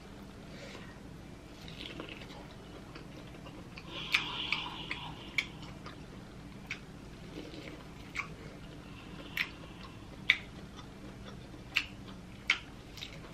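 Close-up eating sounds: biting and chewing corn on the cob, with a crunchy bite about four seconds in and sharp wet mouth clicks and smacks every second or so.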